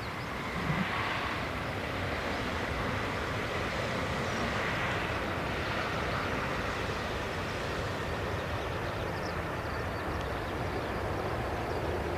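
Boeing 747-8F freighter's four GEnx turbofan engines during the landing rollout just after touchdown: a steady, noisy jet rush with a faint high steady tone, growing a little louder about half a second in and swelling gently a few times.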